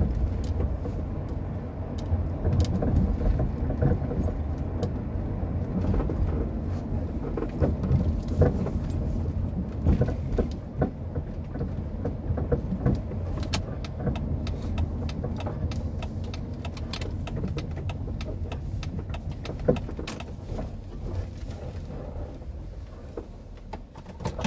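Car driving slowly, heard from inside the cabin: a steady low rumble of engine and tyres, dotted with light clicks and rattles, easing off over the last few seconds as the car slows.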